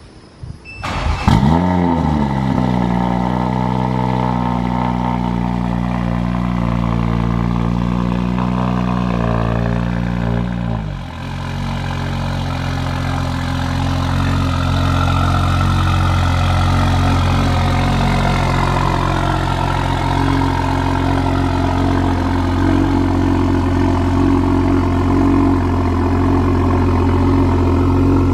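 Turbocharged Toyota Supra inline-six, breathing through a Boost Logic titanium exhaust, starting about a second in with a brief rev flare. It then holds a fast, steady idle. About ten seconds in the idle drops to a lower, steady idle.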